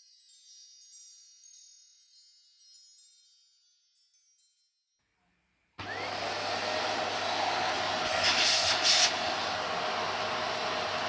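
Faint, high tinkling chime tones that fade out, then after a short silence a steady rushing noise with a low hum starts abruptly and carries on, swelling briefly a few seconds later.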